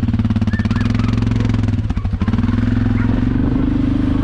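Four-wheeler (ATV) engine running steadily at low speed, with a brief rattle about two seconds in and the engine picking up slightly near the end.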